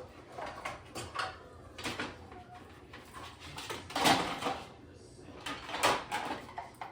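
Dishes knocking and rattling against each other and the dishwasher rack as they are loaded, a series of separate clatters with the loudest about four seconds in.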